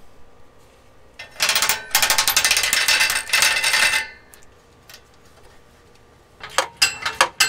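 Socket ratchet clicking rapidly for about two and a half seconds as a nut is worked loose, then a few separate metallic clinks near the end.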